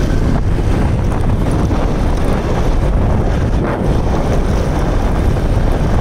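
Wind buffeting the microphone of a moving vehicle, a loud steady low rumble with road and engine noise mixed in.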